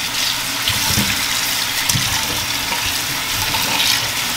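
Kitchen faucet running steadily into a stainless steel pot in the sink, with hands splashing and rubbing raw pigtails in the water to rinse residue off them.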